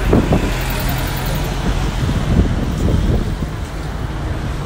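Steady city-street traffic noise with a double-decker bus running close by, and now and then the voices of passers-by.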